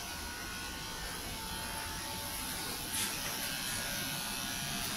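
Electric pet grooming clippers buzzing steadily as they shave a cat's fur, with one light click about three seconds in.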